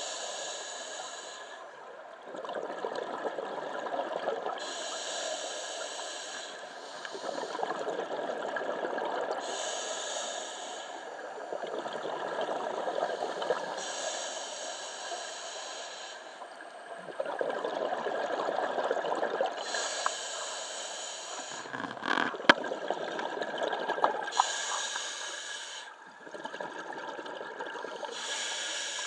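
A scuba diver breathing through a regulator underwater: a short hiss on each inhale every four to five seconds, alternating with a longer, lower rush of exhaled bubbles. A sharp click comes about two-thirds of the way through.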